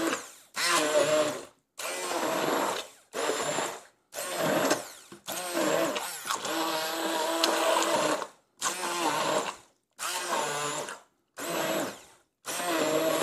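Electric immersion stick blender running through a pot of chunky roasted-vegetable soup, pureeing squash and tomatoes in broth. The motor runs in a string of short bursts of about a second each, stopping and starting, with one longer run of about three seconds in the middle.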